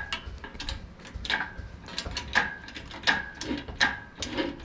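Hydraulic engine hoist being hand-pumped to lift the front of the car: a metallic click and a short squeak on each pump stroke, repeating about once a second.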